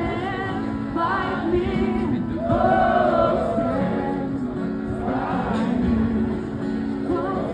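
Street duo performing: a woman singing a slow, held melody at a microphone, accompanied by strummed acoustic guitar.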